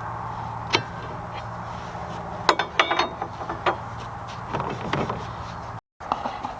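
Metal clinks, clicks and knocks of hand tools working on a truck's drive shaft and transmission parts, several sharp strikes coming in a cluster near the middle, over a steady low hum.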